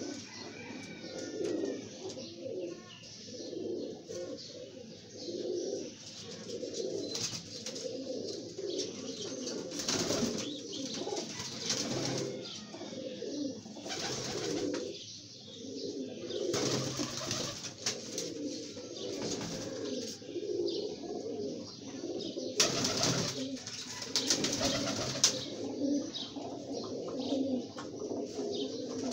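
Domestic pigeons cooing continually in low, pulsing phrases, broken several times by short noisy bursts.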